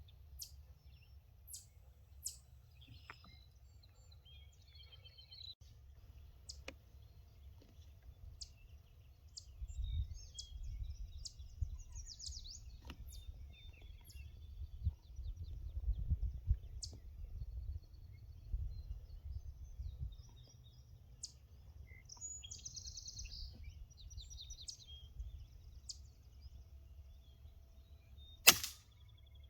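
Scattered faint bird chirps over a low rumble of wind on the microphone, then a single sharp air rifle shot near the end.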